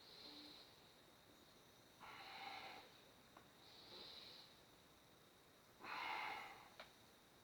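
A person breathing deeply and audibly, about four slow breaths. Thin, high hissing breaths alternate with fuller rushes of air.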